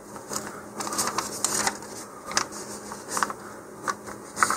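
Hands handling small model-rocket kit parts and paper instructions: scattered light rustles and clicks over a faint steady hum.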